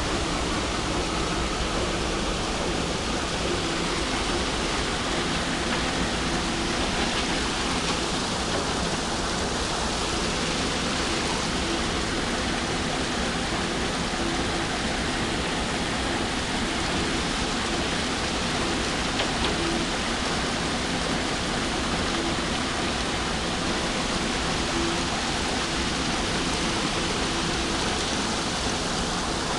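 Steady rush of slurry water running over shaking tables and sluices in tin ore gravity separation, with a faint machine hum underneath.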